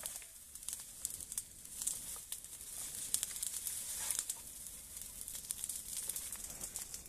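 Open fire burning in dry brush and leaves, crackling with many irregular sharp pops over a steady high hiss.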